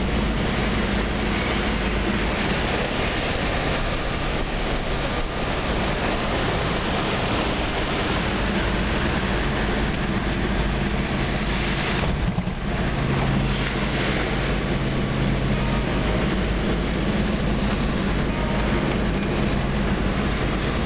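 A 4x4 driving on beach sand, heard from inside the cabin: the engine runs steadily under a constant rush of tyre and wind noise, with a brief lull about halfway through.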